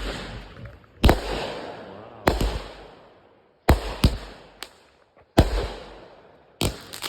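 A string of firework shots: about seven sharp bangs coming roughly once a second at uneven spacing, each followed by a crackling hiss that fades away.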